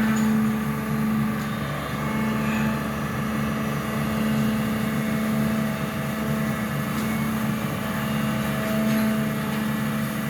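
SANY excavator's diesel engine running steadily at an even pitch.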